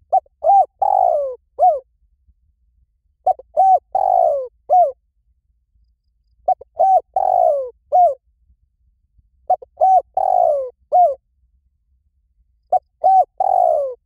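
Spotted dove cooing. Each phrase has two short coos, a longer coo that slurs downward, and a final short coo. The phrase repeats five times, about every three seconds.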